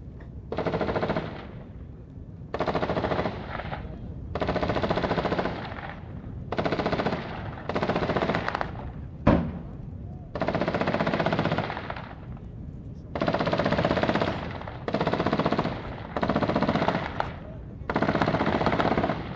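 Machine-gun fire in about ten bursts, each lasting around a second, with short pauses between them. About halfway through there is one single, louder, sharper bang.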